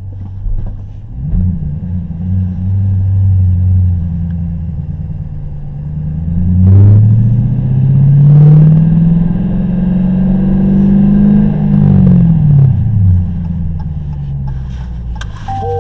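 Car engine and road noise heard from inside the cabin. The engine speeds up from about six seconds in, its pitch climbing steadily, then drops back about twelve seconds in.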